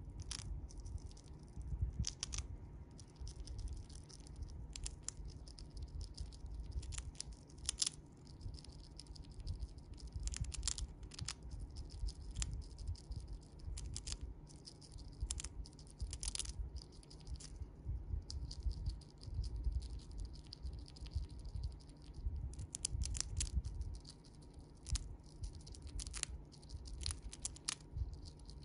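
Siberian chipmunk crunching a dried pumpkin chip: crisp, irregular crackles and clicks of chewing, coming in clusters with short pauses between.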